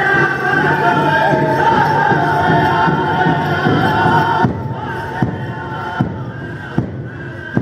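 Powwow drum group singing in high, wavering voices over a big drum. About four and a half seconds in the singing stops, and the drum goes on alone in single, evenly spaced beats a little under a second apart, echoing in the hall.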